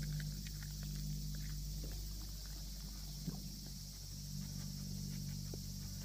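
Steady high buzzing of a cicada chorus, with scattered small clicks and rustles as a dog noses through leafy plants on dirt, and one sharper tick about three seconds in.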